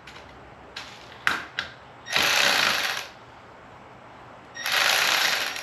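A power tool with a 10 mm socket runs in two bursts of about a second each, backing out frame bolts. A few sharp metallic clicks come before the first burst.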